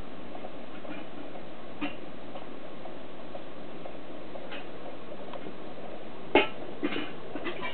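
Scattered small knocks and clicks of toy kitchenware being handled at a play kitchen, a few seconds apart at first, then a louder knock about six seconds in followed by several quicker clicks, over steady hiss.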